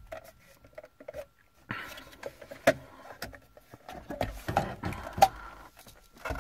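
Irregular clicks and knocks with stretches of plastic scraping as a car's factory double-DIN radio unit is worked loose and pulled out of the dashboard.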